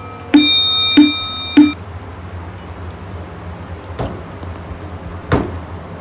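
Edited-in comic pause sound effect: three short pitched blips about 0.6 s apart over a held high tone, ending about two seconds in. After that comes a low steady background, with a small knock about four seconds in and a louder thump a little after five seconds from things being handled on a table.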